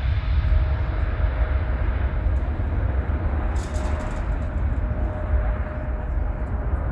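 Jet engines of a KLM Boeing 777-200ER, a steady rumble and rushing noise with a faint held tone.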